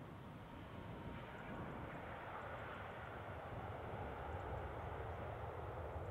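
Distant jet engine noise from an Airbus A320-214's CFM56 turbofans as the airliner slows on the runway after landing: a steady, noisy rumble that grows slowly louder.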